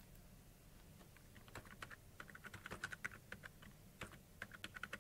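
Faint keystrokes on a computer keyboard: two quick runs of typing, the new password and then its confirmation, with a short pause between them.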